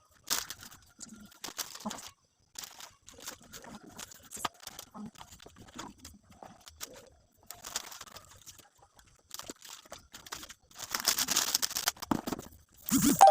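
Plastic wrapping crinkling and rustling with light clicks and taps as gift boxes are handled and unwrapped, with a longer, louder rustle near the end.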